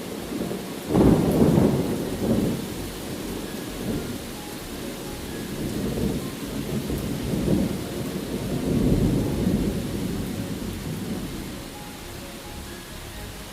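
Thunder rolling over steady rain: a sudden loud clap about a second in, then several rolling rumbles that swell again near the middle and die away toward the end, with the rain hiss continuing underneath.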